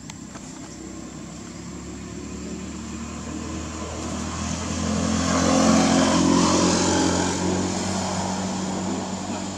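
A motor vehicle passing by. Its engine sound swells to a peak about six seconds in, then fades.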